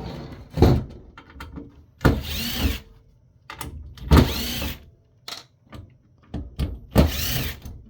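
Cordless power drill run in three short bursts, its motor pitch rising and falling each time, backing out the screws that hold a power supply to a steel chassis, with small clicks and knocks of handling between bursts.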